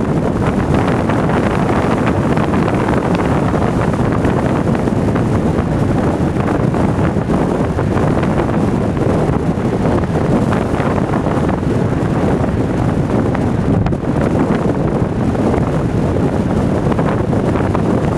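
Wind buffeting the microphone through an open window of a moving car, a steady rushing noise mixed with the car's road noise.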